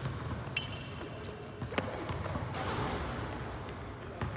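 Smallsword fencers moving on a hall floor, their footsteps thudding, with a sharp click of steel blades meeting and briefly ringing about half a second in, and further clicks near two seconds and near the end.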